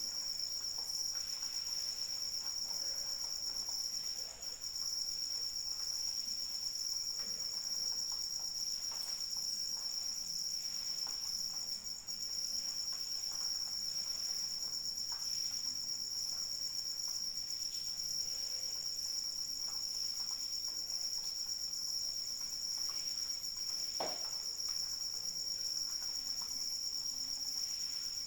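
Several crickets trilling continuously in steady high-pitched tones over faint light rain with scattered drips, and one louder tap near the end.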